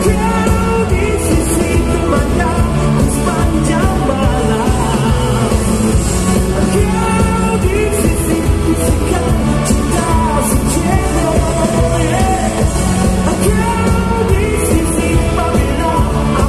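A live pop-rock band plays with a male lead vocalist singing over drums, bass and guitars, backed by an orchestra. It is heard from the audience in a large hall.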